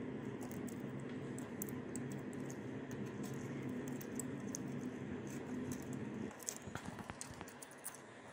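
Light clicks and scratches of a plastic spudger prying flex-cable connectors and handling the logic board of an opened iPhone XS Max, over a steady low hum that drops away about six seconds in.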